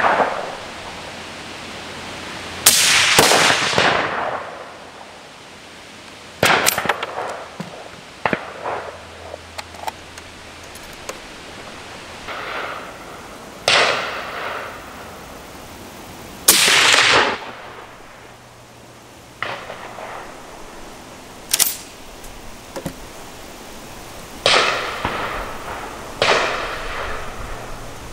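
A Merkel Helix straight-pull rifle in .308 Winchester, fitted with a suppressor, firing a string of single shots a few seconds apart. Each shot is a sharp crack followed by a fading echo lasting about a second.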